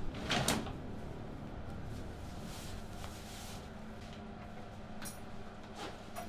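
Clothes rustling as a man undresses, pulling off his shirt and sliding a leather belt out of his trousers: a sharp rustle near the start, a longer rustle in the middle, and small metallic clicks of the belt buckle about five seconds in. A faint steady hum runs underneath.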